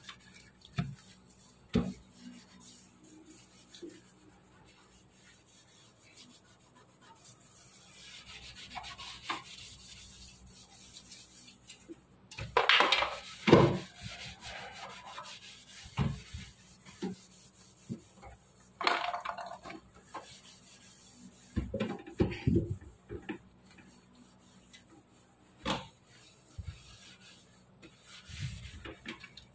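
A scrub pad rubbing over a wet stainless steel sink in uneven strokes, louder in a few stretches, with a few short knocks.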